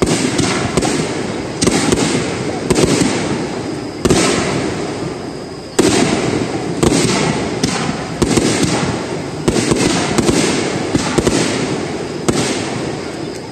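Aerial firework shells bursting one after another, about a dozen sharp bangs over the span, each fading away slowly, with smaller crackles in between.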